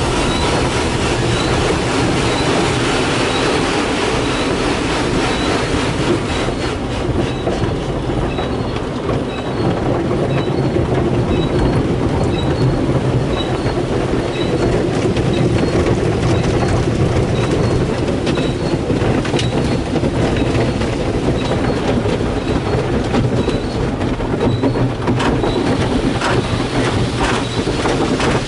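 Tunnel car wash heard from inside the car: a continuous loud rush of water jets and spinning cloth brushes scrubbing the body, with a mechanical rumble and rattle. A faint high tick repeats a little more than once a second.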